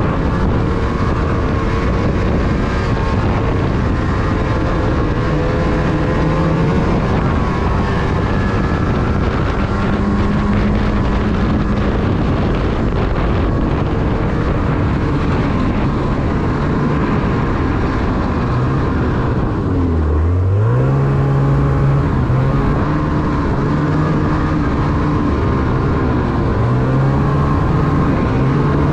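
Snowmobile engine running at trail speed under wind rush, heard from the rider's seat. About two-thirds of the way through, the engine falls almost to idle, then revs back up.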